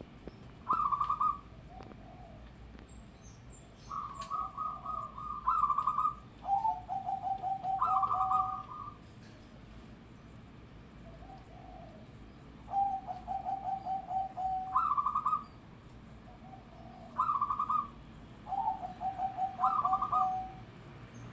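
Zebra dove (perkutut) cooing in repeated song phrases. Each phrase is a stuttering higher note and a lower rolling run of rapid, even coos, about four phrases with pauses between them.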